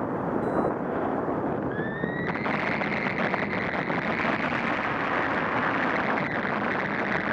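Wind rushing over the camera microphone of a paraglider in flight, a loud steady rumbling hiss. About two seconds in, a thin high tone slides up a little and then holds steady.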